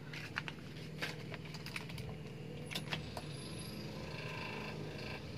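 Ignition key clicking in a carburetted Mitsubishi Colt T120SS, then the electric fuel pump humming faintly and steadily with the key on, priming the carburettor before the engine is cranked.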